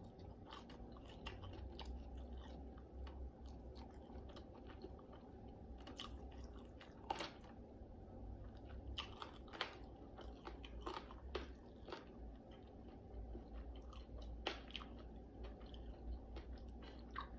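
A person chewing and biting into chicken wings close to the microphone: faint, irregular wet chewing and crunching with sharp mouth clicks, over a low steady hum.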